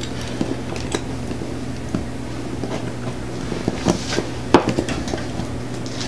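Small clicks and rustles of hands handling wires and crimped terminals at a plastic relay socket block, with a few sharper clicks about four to four and a half seconds in. A steady low hum runs underneath.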